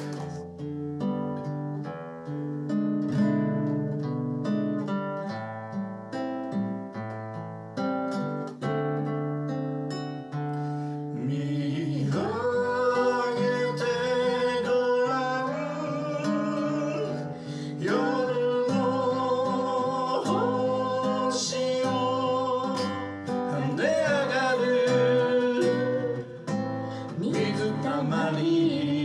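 Acoustic guitar playing an instrumental passage of picked notes, then a voice singing held, wavering notes over the guitar from about twelve seconds in.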